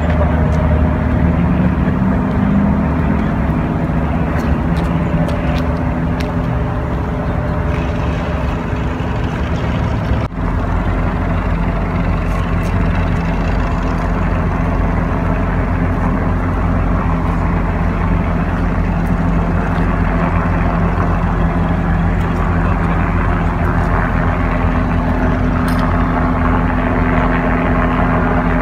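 A large engine running steadily, a constant low drone with a short drop about ten seconds in.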